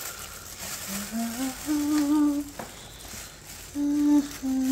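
A person humming a tune in short held notes that step up in pitch, with plastic wrapping rustling faintly.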